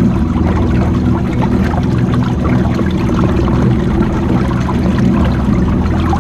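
Electric float boat under way: water churning and trickling close by, over a steady low hum.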